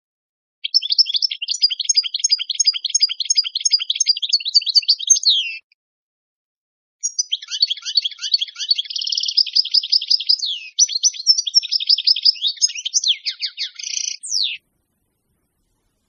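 European goldfinch singing: two long phrases of rapid, high twittering with a short pause between them.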